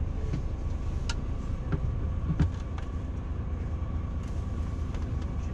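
Steady low rumble of a tour coach running, heard from inside the passenger cabin, with a faint steady whine and a few sharp knocks, the loudest about two and a half seconds in.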